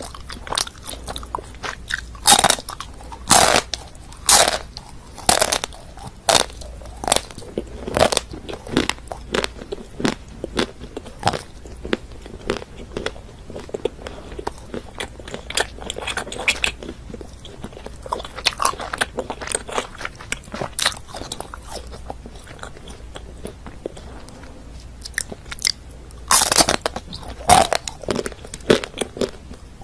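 Close-up biting and chewing of frozen chocolate bars: crisp crunches and snaps in irregular runs. A dense run comes in the first third, lighter chewing follows mid-way, and a loud bite lands near the end.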